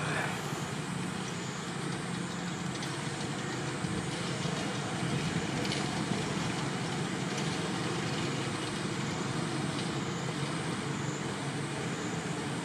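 Steady low engine rumble under a constant hiss, with no distinct events.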